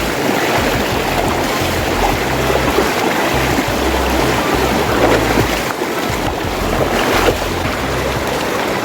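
Loud, steady rush of a fast river's water, with music playing underneath.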